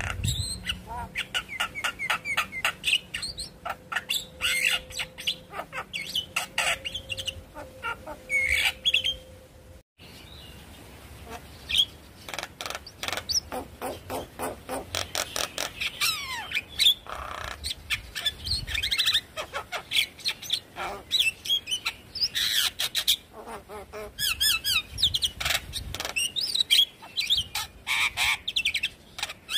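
Javan myna singing vigorously: a fast, varied run of clicks, whistled glides and harsh chattering notes, broken by a short gap about ten seconds in.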